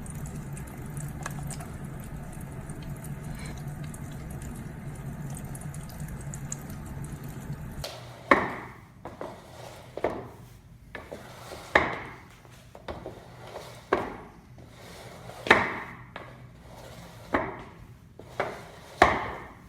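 Water falling in a steady stream from a hydralamp. After an abrupt change about eight seconds in, it gives way to a series of sharp clacks, roughly one every two seconds, each trailing off briefly.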